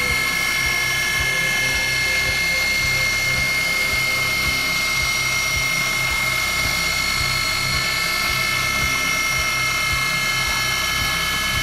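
ProtoTrak DPM3 CNC mill's spindle running with an engraving cutter cutting lettering into a metal bar: a steady high whine made of several constant tones, with a faint irregular low ticking a few times a second underneath.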